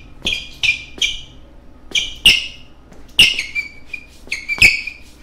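A series of short, high-pitched squeaks in an uneven rhythm, about a dozen of them, likely an edited-in sound effect laid over the footage.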